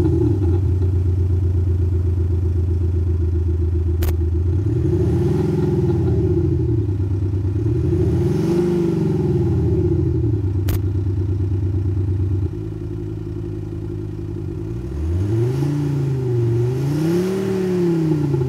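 Mercedes-Benz X250d pickup's diesel engine, fitted with an active-sound exhaust, idling and revved up and back down four times, in two pairs. Two sharp clicks come between the revs.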